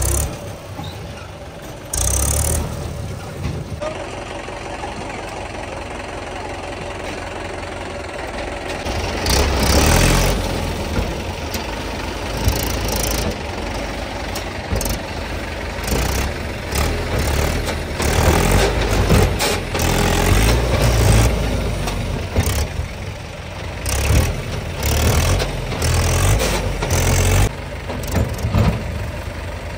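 Diesel tractor engine running under load, its revs rising and falling several times as the loader works soil.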